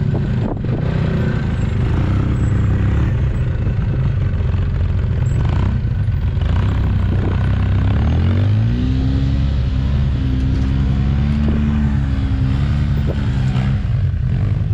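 Side-by-side UTV engines running on a dirt trail, a loud steady drone. From about eight seconds in, an engine revs up and holds under throttle, its pitch rising and wavering for several seconds.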